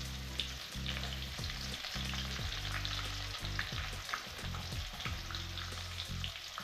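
Sliced onions dropped by hand into hot oil in an aluminium kadai, sizzling and crackling as they hit the oil. A low hum comes and goes underneath.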